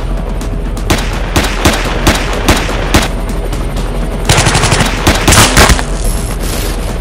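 Automatic gunfire sound effects over steady background music: a handful of single sharp shots about half a second apart, then two rapid bursts of machine-gun fire about four and five seconds in, the loudest part.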